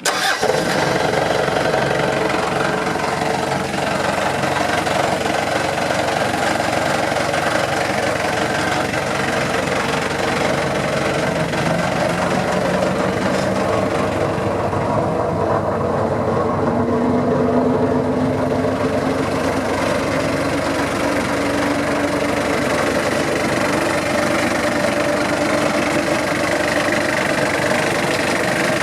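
Vermeer BC1000XL wood chipper's 3.3-litre Cummins diesel engine catching right at the start and then running steadily at idle, with a faint tone rising slowly around the middle.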